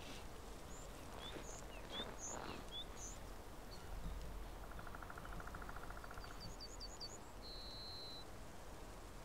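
Small wild birds chirping and calling over a soft outdoor hiss. Short high chirps come in the first few seconds, a rapid trill in the middle, then a quick run of high notes and one held whistle near the end.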